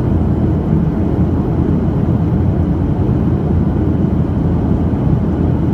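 Steady low rumble and airflow noise inside the cabin of a Boeing 737-700 in flight, from its CFM56-7 jet engines and the air rushing past the fuselage.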